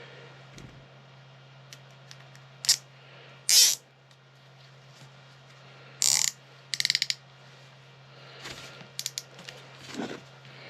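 A thick nylon cable tie being handled and pulled through its locking head. There are a few brief rustles, then a fast run of ratchet clicks about seven seconds in as the pawl rides over the teeth, and a few more clicks near the end.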